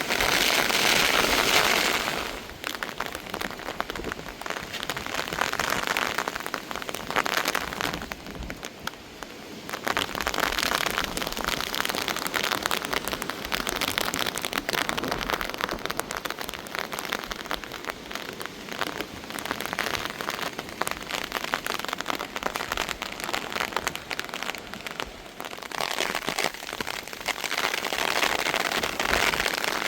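Heavy rain falling hard, a dense hiss of drops striking a surface, swelling and easing in waves, heaviest at the start and again near the end, with a lull about a third of the way in.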